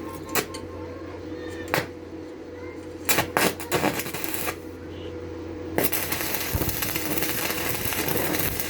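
Metal workshop sounds: steel pieces clinking and knocking a few times, then a steady loud hissing crackle that starts about six seconds in, all over a constant machine hum.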